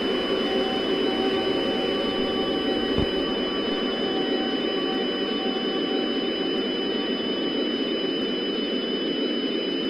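Steady hiss-like noise with two faint, steady high tones in it and a single click about three seconds in.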